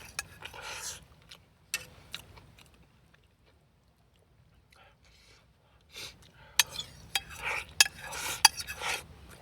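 Utensils clinking and scraping against cookware in scattered sharp clicks. There is a quiet stretch in the middle, then busier clatter over the last few seconds.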